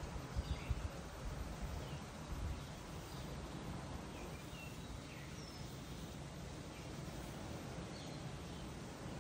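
Faint outdoor ambience: scattered short bird chirps over a steady background hiss, with a few low thumps in the first second.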